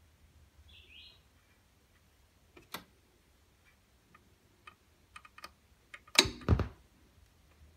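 A few faint clicks from handling the Kenwood KP-9010 turntable's tonearm and controls, then about six seconds in the stylus is set down on the record's lead-in, heard as two heavy thumps in quick succession.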